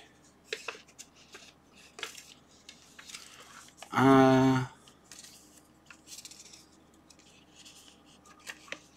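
A folded paper leaflet being handled and unfolded, with soft rustles and small clicks. About four seconds in, a man gives one short, steady hummed "hmm".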